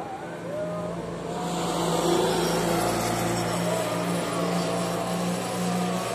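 Heavy dump truck passing beneath on the motorway. Its tyre and engine noise swells about a second in, is loudest around two seconds, then fades slowly as it drives away.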